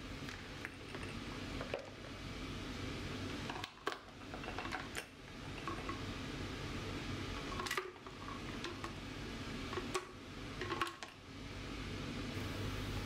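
Thick, frothy milkshake being poured from a bottle into glass tumblers, with a few sharp clicks along the way.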